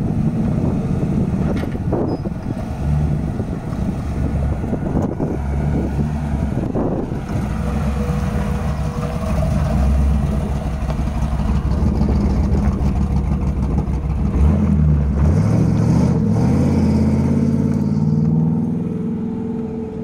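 1979 Jeep CJ7's engine running hard as it spins donuts in loose dirt, its pitch rising and falling with the revs, climbing in a long rev about three-quarters of the way through.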